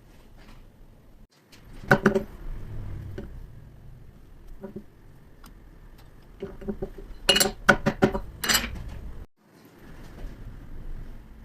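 Metal parts or tools clinking and knocking against each other with a short metallic ring. There is one sharp clink about two seconds in, then a quick run of several clinks near the middle-to-late part.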